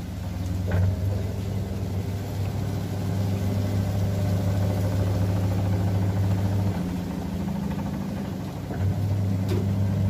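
Top-loading washing machine's motor humming steadily as the spin cycle starts. A light click comes just under a second in, and the hum cuts out about seven seconds in, then starts again about two seconds later.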